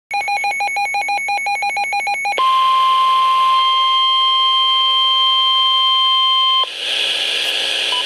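Weather alert radio sounding a warning: about two seconds of rapid electronic beeping, then the NOAA Weather Radio 1050 Hz warning alarm tone held steady for about four seconds. The tone cuts off sharply into radio hiss.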